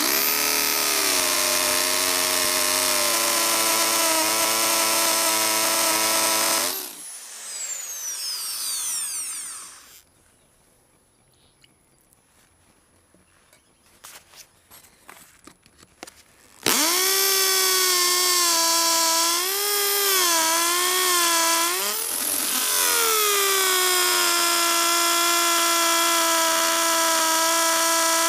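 Electric drill running at full speed, drilling out a stripped axle bolt in an inline skate frame. It winds down about seven seconds in, stays stopped for several seconds, then starts again and runs on, its whine dipping in pitch a few times under load.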